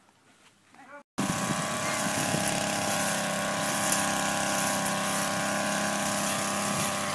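Brush cutter's small petrol engine running steadily. It starts abruptly about a second in, after a moment of near quiet.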